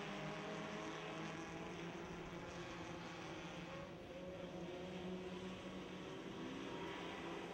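A pack of dirt-track race cars running laps together, several engine notes at different pitches rising and falling.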